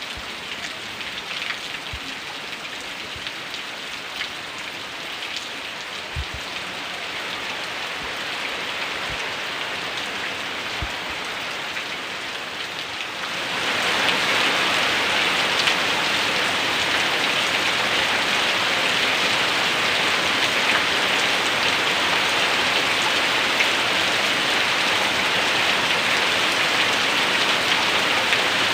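Heavy rain falling, with a few separate heavy drops knocking in the first half. About halfway through the downpour suddenly gets louder and denser, then stays steady.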